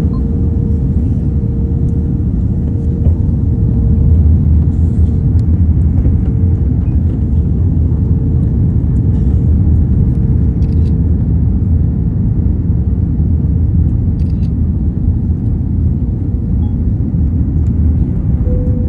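Steady cabin noise inside a jet airliner on landing approach with flaps extended: a loud low rumble of engines and airflow with a steady hum tone above it.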